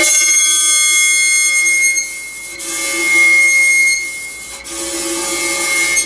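Steady high-pitched electronic tone with buzzy overtones from the speaker of a cymatics setup, holding one pitch and dipping briefly in level twice.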